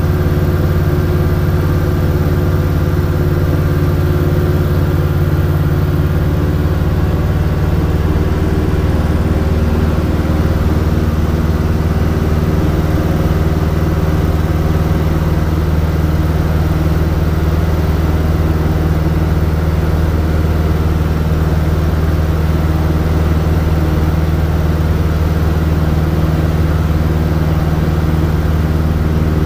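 Robin DR400 light aircraft's piston engine and propeller droning steadily, heard from inside the cabin in cruise flight.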